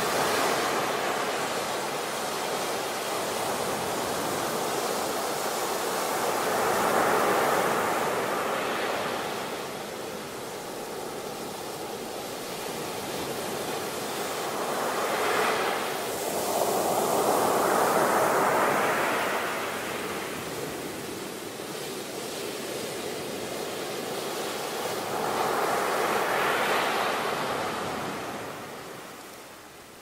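Ocean surf breaking on a beach: a continuous rushing wash that swells and fades as each wave comes in, with surges about every eight to ten seconds.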